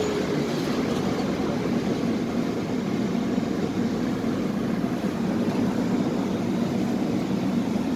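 Steady low hum and noise inside a Tatra T3SU tram car standing at a stop.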